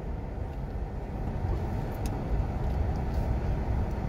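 Steady low rumble of a car's engine and tyres heard from inside the cabin while driving slowly along a town street.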